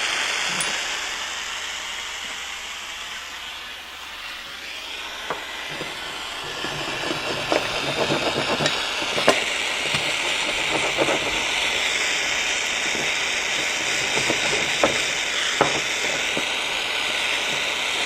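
Aero acetylene soldering torch burning with a steady hiss. From about five seconds in, crackling and sizzling with scattered sharp ticks as solder is melted on a sal ammoniac block under the hot iron.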